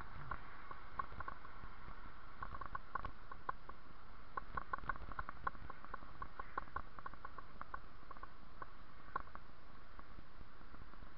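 Bicycle rolling along a paved path: a steady rush of tyre and wind noise with irregular light ticks and rattles, thickest about four to five seconds in.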